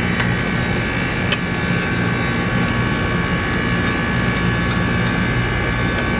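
Steady hum of a running machine or electrical appliance, with a high, even whine over it that does not change. A few light clinks of forks and chopsticks on plates.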